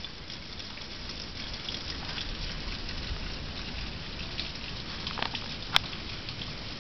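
Rain pattering steadily, with wind rumbling on the microphone and one sharp click a little before the end.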